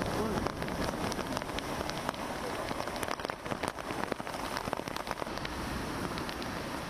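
Heavy monsoon rain pattering, with many sharp individual drop hits, over a steady rushing wash of rough sea breaking against the sea wall.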